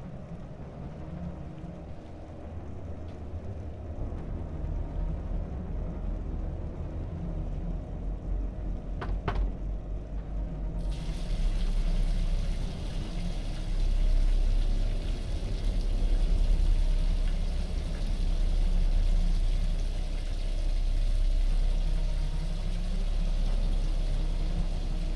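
Low horror-film ambience rumble that builds slowly in loudness, with a brighter hissing layer cutting in about eleven seconds in and one short click a little before that.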